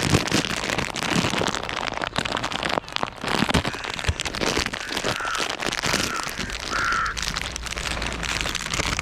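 Dense crackling and rustling, full of small clicks, with three short high bird calls about five, six and seven seconds in.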